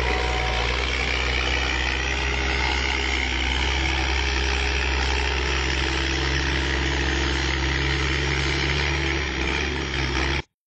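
Diesel engine of a semi truck hauling a loaded flatbed, running steadily at a low, even pitch, with a hiss of noise above it. The sound cuts off suddenly near the end.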